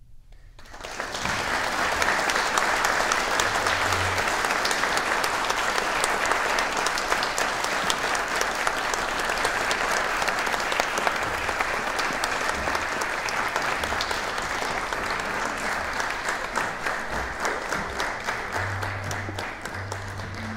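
Audience applauding at the end of a chamber music piece: many hands clapping, starting about a second in and thinning slightly near the end.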